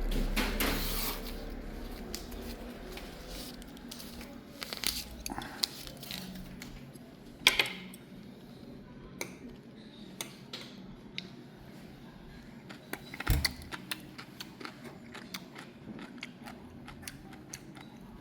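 Light clinking and clattering of cutlery against dishes: scattered sharp clicks, with a louder knock about seven seconds in and another little cluster of knocks a little after thirteen seconds.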